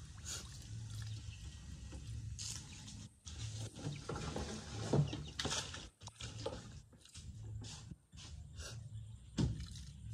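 Water splashing and sloshing in a plastic basin as a baby monkey paddles about in it, in irregular bursts.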